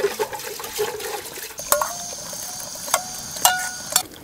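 Buttermilk poured from a plastic jug into a metal pot, filling it with a steady splashing pour. Then a ladle clinks against the metal pot four times, each clink ringing briefly.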